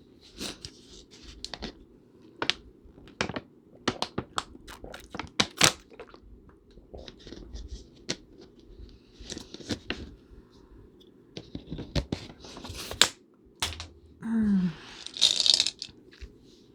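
A run of sharp clicks and taps from items being handled at a table. About fourteen seconds in comes a short hummed 'mm', then a brief crinkling, tearing rustle, like a snack wrapper being handled.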